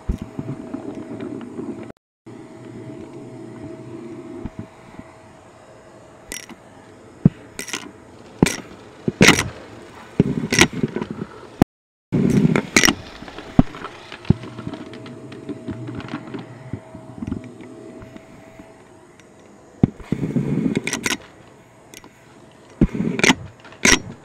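Shark vacuum running with its extension wand and crevice tool, giving a steady hum with a faint tone, broken again and again by brief scrapes and knocks as the tool is drawn along the baseboard and carpet edge.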